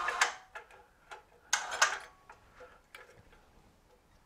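Metal clattering and clicks from handling a homemade toe jack on a hanging scale's hook: two short clattering bursts about a second and a half apart, then light scattered clicks.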